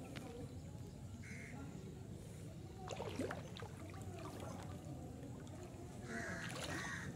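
Crows cawing: one caw about a second in and several harsh caws near the end, over a steady low rumble. A brief louder noise comes about three seconds in.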